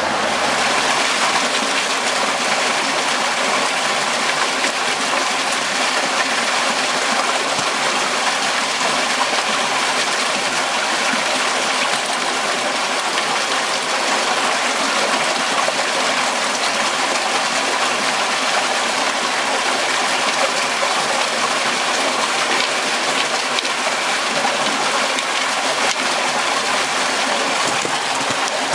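Water rushing and splashing steadily as it pours down into a flood-control catch basin.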